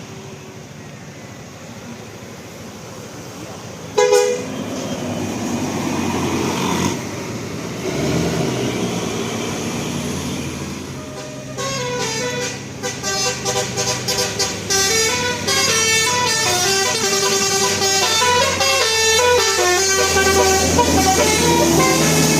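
A bus horn gives one short blast about four seconds in, then the bus's engine runs. From about halfway through, a telolet Basuri multi-tone musical horn plays a fast melody of changing notes, loud and continuing to the end.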